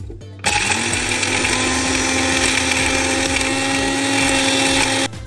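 Small electric blender grinding baharat spices. The motor starts suddenly about half a second in, spins up to a steady high speed within a moment, runs with a loud grinding hiss, and cuts off sharply near the end.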